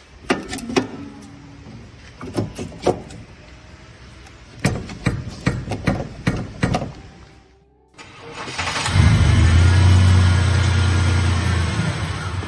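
Scattered metallic knocks and clanks as a hand works at a car's rear coil spring. About eight seconds in, an engine starts suddenly and runs loudly and steadily.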